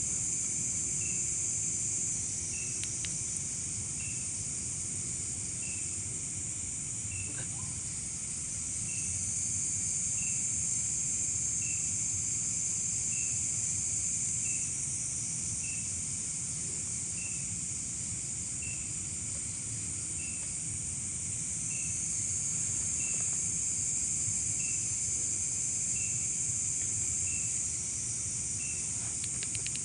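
Night insect chorus of crickets: a steady high shrill that swells louder twice and eases back, with a short high chirp repeating about every second and a half.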